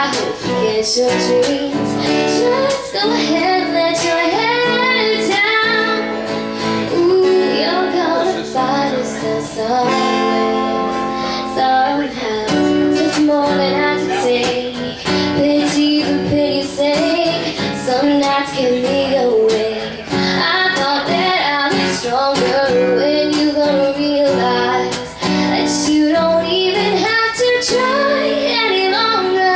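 A young girl singing a pop song into a microphone, accompanied by a strummed acoustic guitar.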